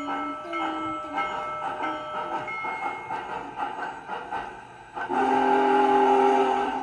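O gauge model train running on its layout, then about five seconds in its onboard sound system plays a loud horn blast lasting about a second and a half.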